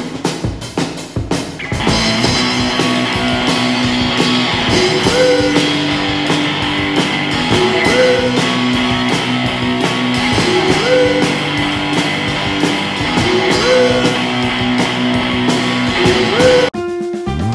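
Rock music with guitar and a steady beat. It breaks off near the end, and a different piece begins.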